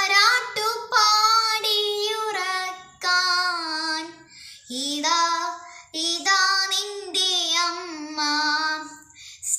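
A young girl singing a Malayalam Marian devotional hymn solo and unaccompanied, in several sustained phrases with vibrato on the long notes and short breaths between them.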